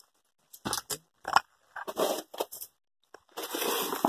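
Irregular scraping and crackling noises with a few sharp knocks, and a longer scuffing rush near the end, from a phone camera being handled and moved about.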